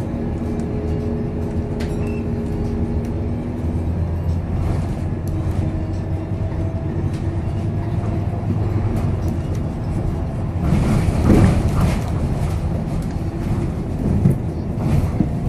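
Scania K230UB single-decker bus heard from inside the saloon while under way: a steady engine drone with a whine that shifts in pitch. About two-thirds of the way through comes a short, louder burst of noise.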